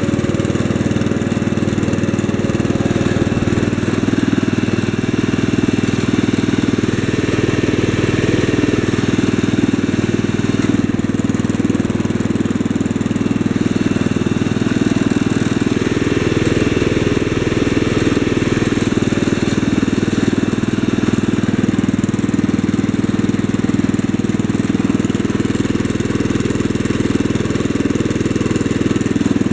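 1965 Wheel Horse 875 garden tractor's 8-horsepower engine running steadily while the tractor is driven on its hydrostatic transmission.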